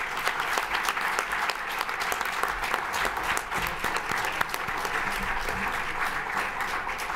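Audience applauding steadily, a dense patter of many hands clapping that fades out near the end.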